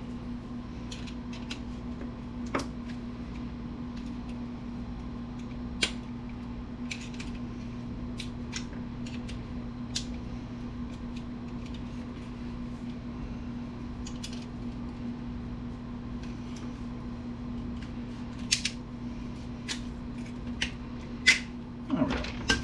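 Scattered light clicks and taps of small plastic and metal computer parts being handled and pulled apart, over a steady low hum. The clicks come loosely spaced, with a busier run near the end.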